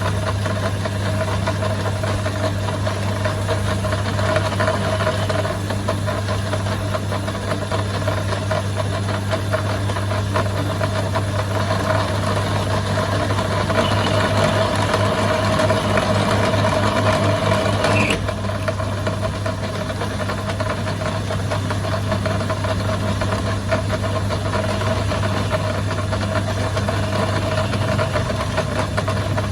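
A workshop machine running steadily with a constant low hum. About halfway through it gets louder and a higher-pitched sound joins in for a few seconds, then cuts off suddenly.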